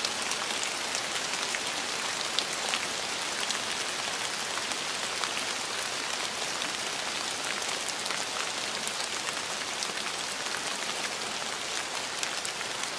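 Steady rain falling on a surface: an even hiss sprinkled with many small, sharp drop ticks.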